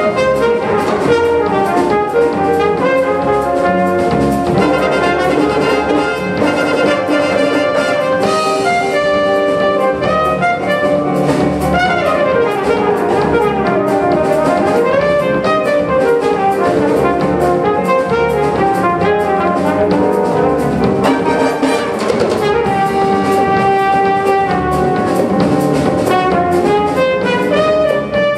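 A brass and wind band plays a full arrangement: trumpets, trombones, saxophones and tuba over a drum kit, continuous throughout.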